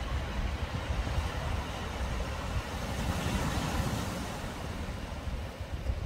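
Wind buffeting the microphone, with a broad rushing noise underneath that swells about halfway through.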